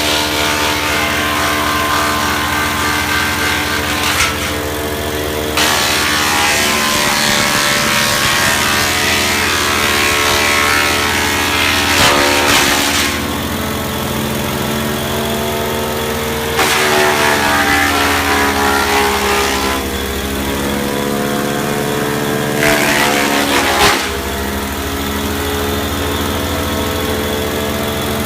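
Briggs & Stratton-engined wood chipper running steadily. Four times it gives a burst of harsh chipping noise as material goes through, and in the longer bursts the engine's pitch sags under the load.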